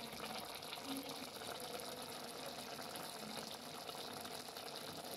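Faint, steady watery hiss of a pot of prawn curry simmering.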